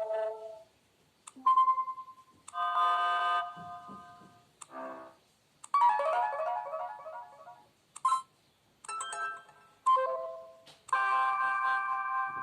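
A run of short built-in phone alert tones from a KAZAM Trooper2, played one after another: about eight brief electronic chimes and jingles, some a single beep, some a quick falling run of notes, some a held chord, each separated by a short gap.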